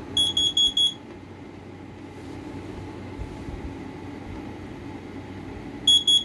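Carbon monoxide alarm sounding on test: four quick, high-pitched beeps, a pause of about five seconds, then four beeps again near the end. This four-beep-and-pause cycle is the standard carbon monoxide alarm signal.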